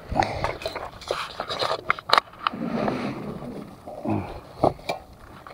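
Footsteps in rope-strap sandals scuffing and slapping on a concrete walkway, an irregular run of clicks and scrapes.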